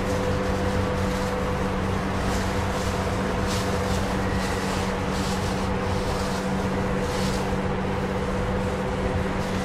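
Cloth wiping over crinkly plastic masking sheet on a car body, a short rustle every second or so. Under it runs a steady machine hum, the loudest sound.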